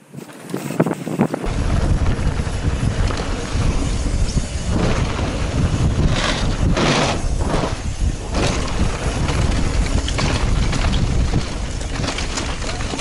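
Wind buffeting a helmet-mounted action camera's microphone on a fast mountain-bike descent, mixed with tyre noise and rattles from the bike on a loose dirt trail. A heavy low rumble sets in about a second and a half in, with a few sharper knocks from bumps midway.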